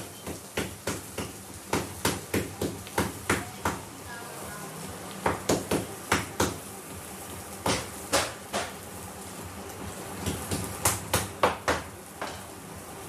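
A run of sharp knocks, coming irregularly in quick clusters of two to five with short pauses between.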